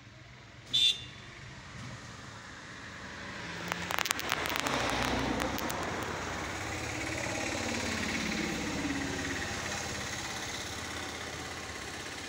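Engine noise of a passing motor vehicle. It swells about four seconds in, with a quick burst of clicks, then holds before slowly easing off. A brief high-pitched sound about a second in is the loudest moment.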